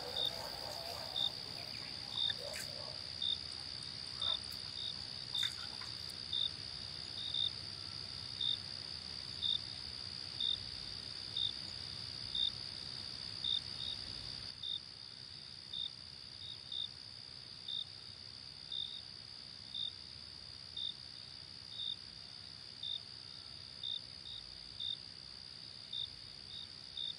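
Night crickets: a steady high-pitched trill with a separate chirp repeating about once a second.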